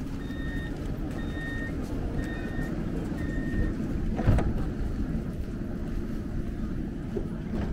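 Tram interior with a steady low rumble, over which an electronic warning beep sounds four times, about once a second, typical of a tram's door-closing signal. A heavy thud follows about four seconds in.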